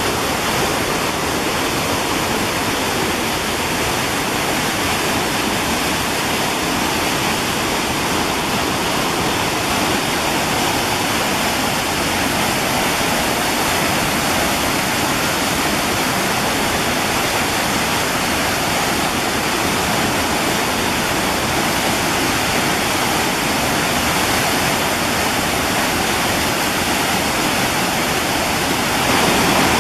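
Waterfall: whitewater pouring over boulders in a steady, unbroken rush, a little louder near the end.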